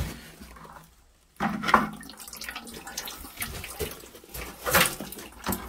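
Engine oil pouring and dripping from beneath the engine as the oil filter comes loose, with a few sharp knocks from handling.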